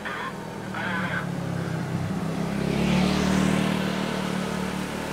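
A motor's steady hum that swells to its loudest about three seconds in and then eases off, as of something passing close.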